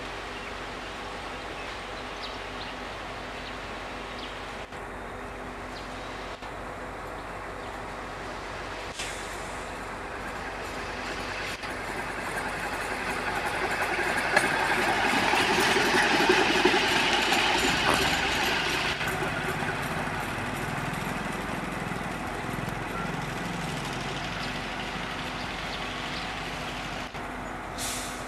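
Railway inspection trolley running along the rails and passing by. Its wheel and running noise swells to a peak about halfway through, then fades as it moves away.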